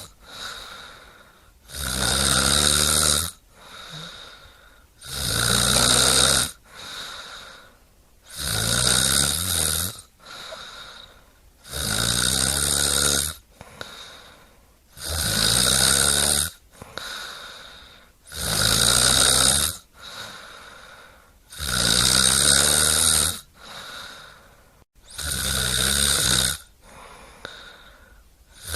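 Deep, regular snoring: about eight loud snores, one roughly every three and a half seconds, each lasting about a second and a half, with a faint breath between them.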